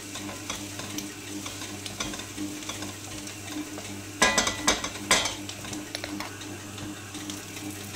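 Chicken frying in oil in a frying pan, a steady crackling sizzle. About four to five seconds in, a wooden spatula scrapes and knocks against the pan several times as the pieces are stirred and turned.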